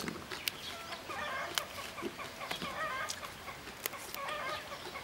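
Hens clucking in short, scattered calls. A few sharp snaps come as fresh pea pods are split open by hand.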